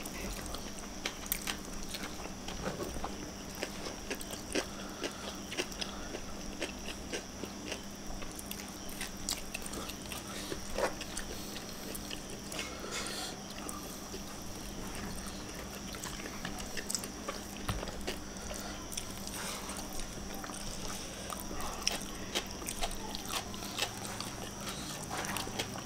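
Close-up eating sounds of two people eating rice and sambal-coated fish with their fingers: chewing, lip smacks and short wet clicks scattered throughout. A faint steady hum lies underneath.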